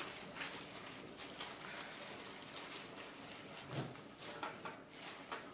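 Soft rustling and light patter of steamed couscous grains being worked by hand in a dish as salt is sprinkled over them.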